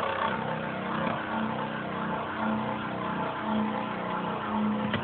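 Two Beyblade spinning tops, Tornado L-Drago and Tornado Leone, spinning together in a stadium: a steady whirring with scraping as they grind against the floor and each other, both still spinning in a close battle.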